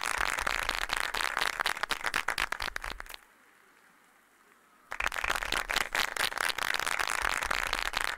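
Audience applauding with steady, dense clapping. It cuts out to near silence for about a second and a half near the middle, then resumes.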